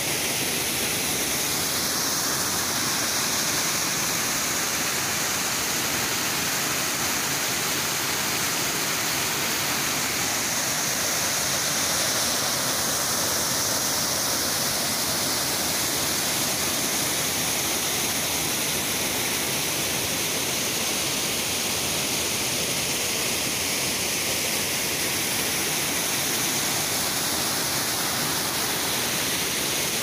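Small waterfall pouring into a river pool: a steady, even rush of water.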